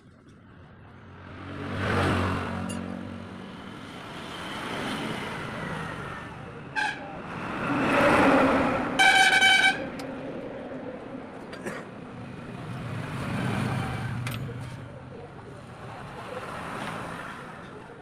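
Road traffic passing in waves, each vehicle swelling and fading. A short horn toot sounds about seven seconds in, and a louder, longer horn blast comes around nine seconds.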